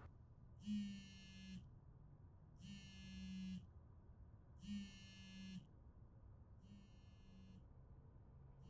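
Mobile phone buzzing for an incoming call: four quiet buzzes, each just under a second long, repeating every two seconds.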